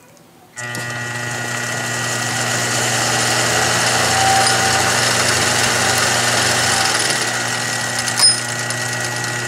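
Billiard cue lathe switched on about half a second in: its motor starts at once and runs steadily with a hum and a whine, spinning the cue shaft and building a little over the first few seconds. A short click sounds near the end.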